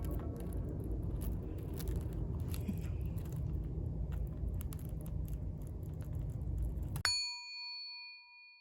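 Steady low rumble with scattered small clicks, then about seven seconds in a single bright bell-like ding that rings and fades over about a second and a half.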